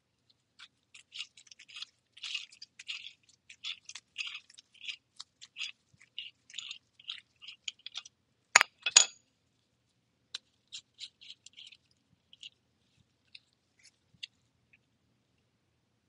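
Small metal tool parts ticking and scraping as the IE tool is turned on the Vapor Pin's threads and taken apart by hand, with a sharper double clink about eight and a half seconds in.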